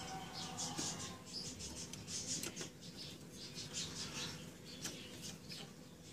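Hand screwdriver turning a screw into the sheet-metal shield of a laser printer's formatter board, making faint, high, squeaky scrapes in short repeated strokes, a few a second.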